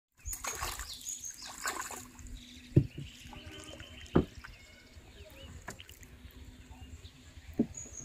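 A hooked fish splashing at the surface as it is pulled from the water, then a few sharp knocks on the wooden boat as it is landed and flaps on the line. A drawn-out animal call and bird chirps sound in the background.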